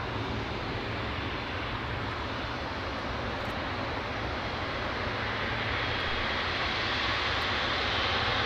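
Jet engine noise from a Boeing 777F's GE90 engines: a steady rushing that slowly grows louder toward the end.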